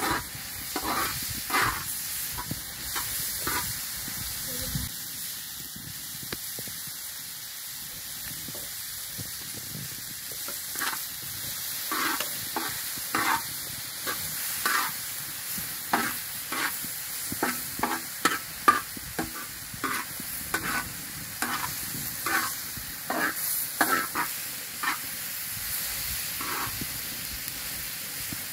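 Chopped vegetables sizzling as they fry in a wide, shallow metal pan, with a metal spoon scraping and clinking against the pan as they are stirred, in irregular strokes about once or twice a second.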